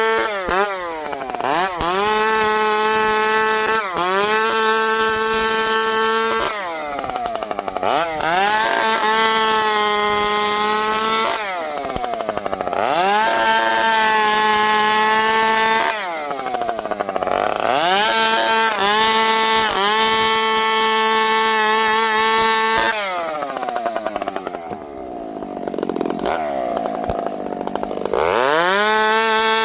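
Dolmar two-stroke chainsaw cutting wood: the engine revs up to full throttle and holds a high steady note for a few seconds at a time, then drops back toward idle between cuts, over and over.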